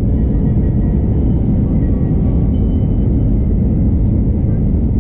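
Steady low rumble of a Shinkansen at speed, heard inside the passenger cabin.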